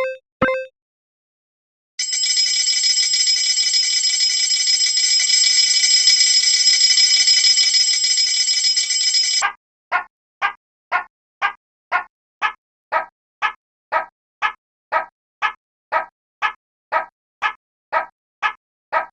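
Two short beeps, then a bell ringing steadily for about seven seconds that stops suddenly. It gives way to a railway level-crossing warning bell sounding in even strokes about twice a second.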